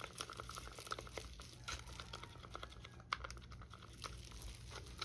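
Faint scattered light clicks and crinkling from small plastic resin-craft supplies being handled, with one sharper click about three seconds in.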